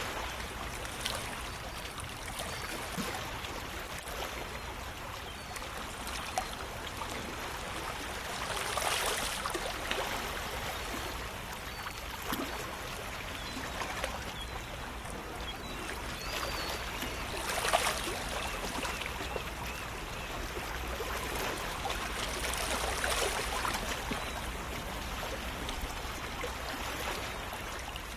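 Steady sound of moving water, a continuous splashing haze with three louder surges spread through it.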